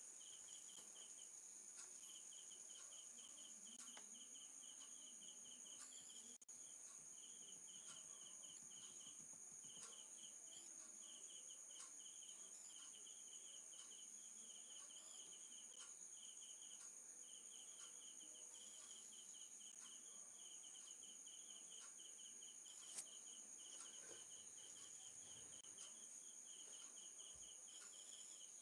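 Faint crickets chirping in rapid pulsed trains with brief breaks, over a steady high-pitched whine, with a faint click late on.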